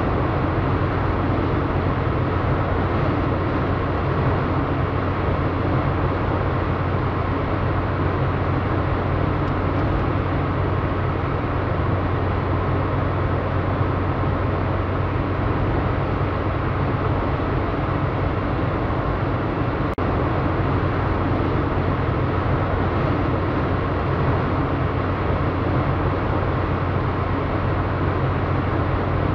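Steady driving noise of a car at highway speed, heard from inside the car: tyre and road noise over a low engine hum.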